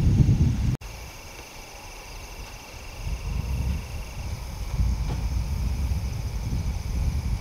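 Wind buffeting the microphone in low, gusty rumbles, over insects trilling steadily in the field. The sound drops out abruptly less than a second in, and the wind rumble builds again from about three seconds on.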